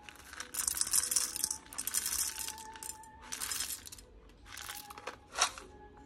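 Whole roasted coffee beans poured from a paper cup into the metal bowl of an electric blade coffee grinder, rattling and clinking against the steel in four bursts, with one sharp click about five seconds in.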